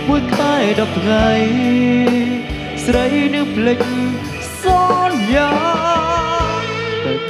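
Live band playing a Khmer pop song: a drum kit keeps the beat with steady kick hits and cymbals under bass and guitar, while a wavering, sliding lead melody carries the tune.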